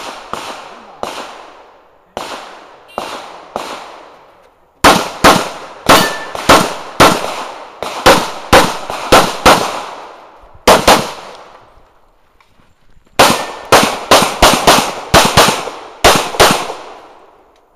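A semi-automatic pistol fired in fast strings of shots, many in quick pairs, each shot trailing off in echo. A few quieter shots come first, then two long loud runs of shots with a pause of about two seconds between them.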